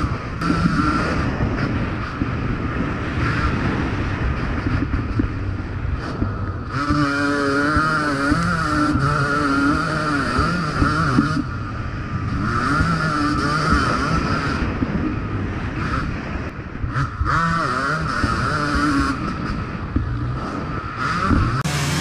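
Yamaha YZ250 single-cylinder two-stroke motocross bike being ridden, its revs repeatedly rising and falling as the throttle is opened and closed.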